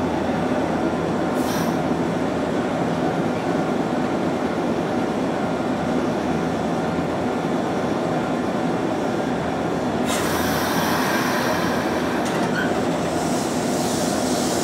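Nankai Koya Line electric train moving slowly alongside the platform: a steady rumble of motors and wheels, with a hiss joining about ten seconds in.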